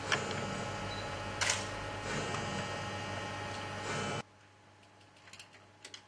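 Steady background hum with two sharp clicks, which cuts off suddenly about four seconds in; then a quieter stretch with a few faint footsteps on the stage floor.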